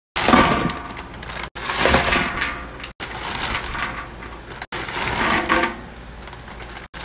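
Loose candy poured into a stainless steel bowl: a rattling rush that tails off, repeated four times with abrupt breaks between, and a fifth pour starting near the end.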